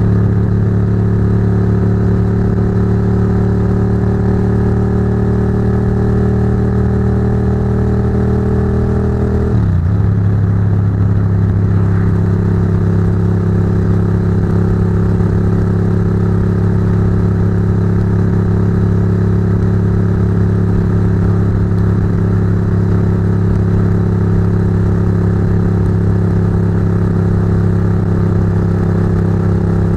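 Ducati GT1000's air-cooled L-twin engine with Termignoni exhaust running under way, picked up close above the pipes. The engine note climbs slowly, drops sharply about ten seconds in, then holds steady at cruising speed.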